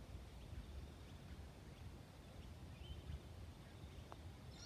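Quiet outdoor ambience: a low rumble of wind on the microphone with a few faint, brief bird chirps.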